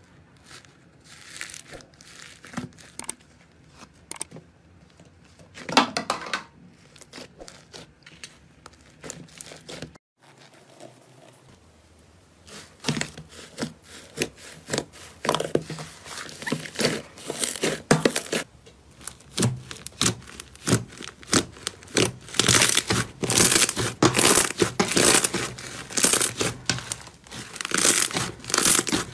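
Hands kneading, pressing and pulling apart slime, with soft crackling and tearing sounds. These are sparse at first. After a brief break about a third of the way in, a fluffy green slime being kneaded and stretched gives denser, louder crackling that is strongest near the end.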